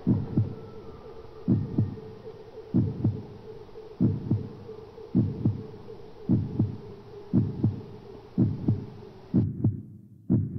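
Heartbeat sound effect: slow paired thumps, lub-dub, about once a second and gradually quickening, over a steady low hum that drops out near the end.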